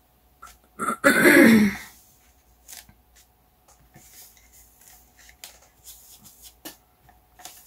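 A person clears their throat once, about a second in. Then come faint, scattered soft dabs and rustles as a kitchen-type sponge is pressed onto and lifted from a painted canvas.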